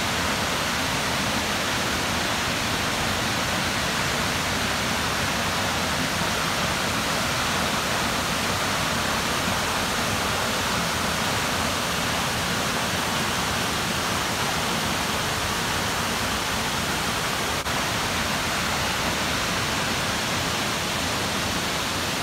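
Waterfall and the white-water cascades below it: a steady rushing of falling water at an even level throughout.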